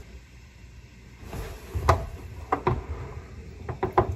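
Light clicks and knocks of something being handled: one about two seconds in, a couple more shortly after, and a quick cluster near the end.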